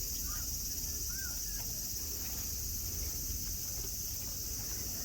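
Cicadas droning steadily in a high-pitched chorus, with a few short bird chirps in the first second or so.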